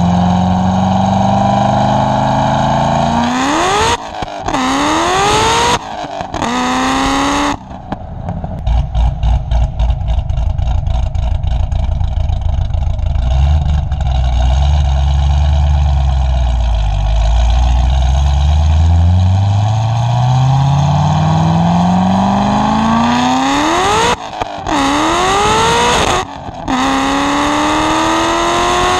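The supercharged V8 of a modified, E85-fuelled 2009 Corvette ZR1, pulling hard through the gears of its six-speed manual. The engine pitch climbs and drops at each upshift, twice early on. It then runs lower with a pulsing sound for a while, and pulls hard again with two more upshifts near the end.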